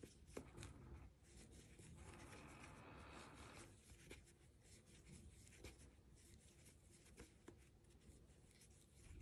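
Near silence, with faint rubbing and light ticks from a metal crochet hook drawing yarn through single crochet stitches.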